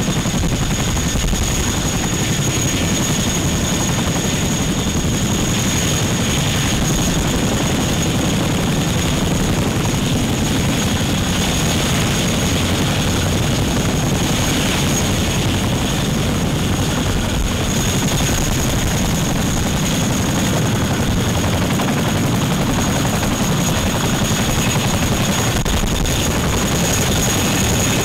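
RAF Boeing Chinook tandem-rotor helicopter running on the ground, its twin rotors chopping steadily over a constant high turbine whine.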